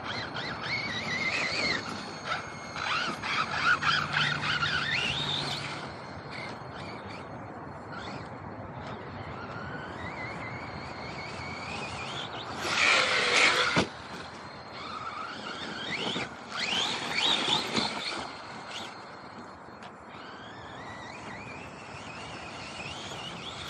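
Brushless electric motor of an RC monster truck whining as it is throttled up and down, its pitch rising and falling repeatedly. There are two loud rushing bursts of driving noise, about 13 seconds in and again around 17 seconds.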